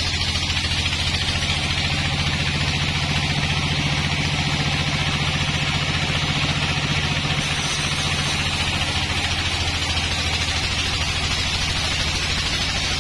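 Log bandsaw mill running and sawing through a long-dried log. A steady low machine hum carries under a constant higher hiss from the blade cutting the wood.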